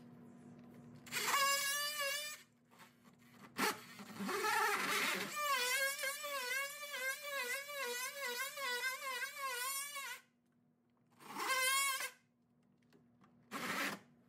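Cordless oscillating multi-tool buzzing as its blade cuts through drywall, in about four separate runs that stop and start, the longest lasting about five seconds. The pitch wavers up and down repeatedly as the blade bites into the board.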